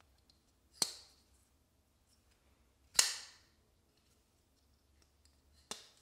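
Folding knife's blade snapping open and shut in the hand: three sharp metallic clicks with a short ring, about a second in, at the middle (the loudest) and near the end.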